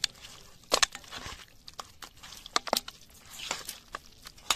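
A hand kneading raw mutton pieces with turmeric in a stainless steel bowl: irregular squishing of the meat and clicks of meat and fingers against the metal, with a few louder knocks.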